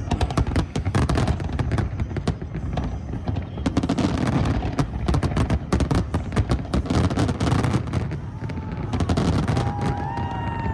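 Fireworks display in a dense barrage: rapid bangs and crackling bursts over a low rumble, easing off near the end, where a few whistling tones glide up and down.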